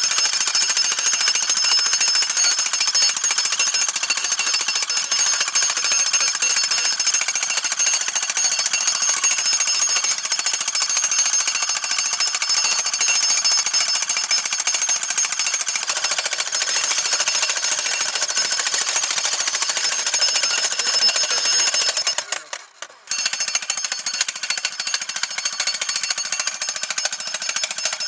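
Jackhammer running continuously, with a brief stop about 22 seconds in before it starts hammering again.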